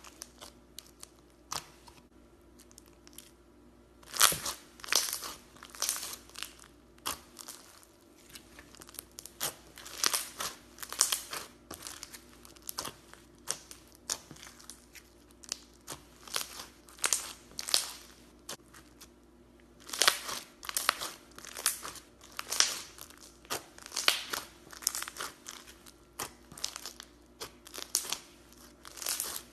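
Crunchy white slime with coloured bits being pressed and squeezed by hand, giving off irregular crackling crunches that come in clusters of several a second.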